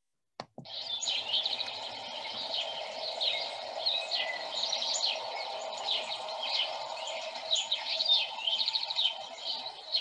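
House sparrows chipping over and over in a busy bird chorus, many short chirps overlapping, over a steady low background hum.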